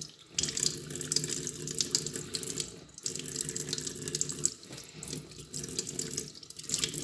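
Kitchen tap running a thin stream of water over a spinning fishing reel held in wet hands above a stainless-steel sink, splashing steadily, to rinse salt off the reel. The splashing briefly drops away a few times as the hands and reel move through the stream.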